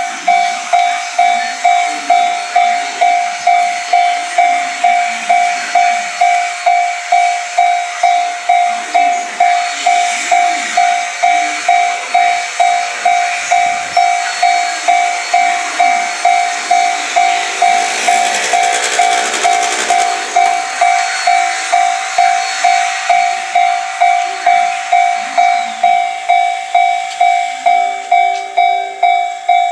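Japanese railway level-crossing warning bell starting to ring, an electronic ding on one steady pitch repeating evenly a little under two times a second. About two-thirds of the way through, a train passing over the crossing adds a broad rushing rumble that swells and fades under the bell.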